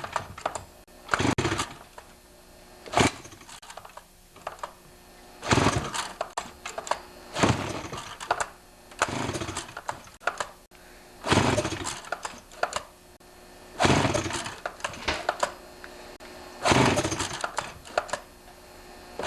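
Stihl 028 AV two-stroke chainsaw pulled over again and again on its recoil starter during a compression test, with the spark plug out and a compression gauge in the plug hole. Each pull is a short rasping burst of the rope and the engine turning over without firing, about eight pulls a couple of seconds apart.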